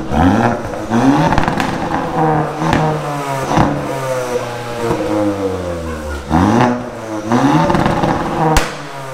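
Hyundai i20 N's turbocharged 1.6-litre four-cylinder, breathing through a Milltek downpipe and cat-back exhaust, being driven hard: the engine note climbs and drops again and again with the gear changes. A few sharp cracks sound along the way.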